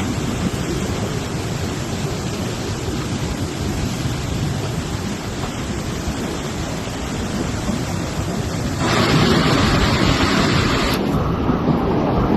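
Rushing water of a river in flood, a steady loud rush. Near the end it jumps louder and brighter, as if heard from closer.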